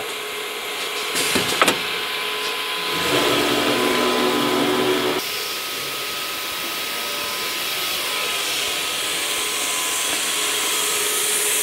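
CNC router's servo-driven axes travelling the ATC spindle to the tool-length sensor for an automatic tool measurement. A couple of clicks come first, then a steady motor whine for about two seconds that stops suddenly, then a steady hiss that slowly grows as the tool is lowered toward the sensor.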